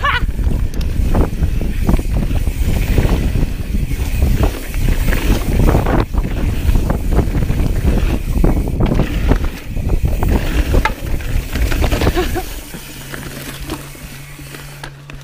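Mountain bike ridden fast down a dirt jump trail: wind buffeting the camera microphone and tyres and frame rattling over the dirt. About twelve seconds in the rumble eases and a steady low hum comes in.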